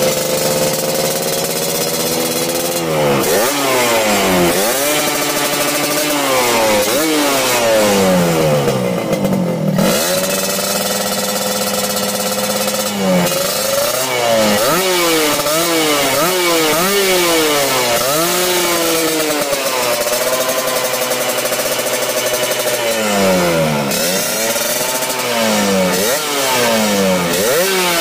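Yamaha RX-King 135cc single-cylinder two-stroke engine being revved in repeated quick throttle blips, the pitch shooting up and falling back each time. Between the blips it settles briefly into a steady idle.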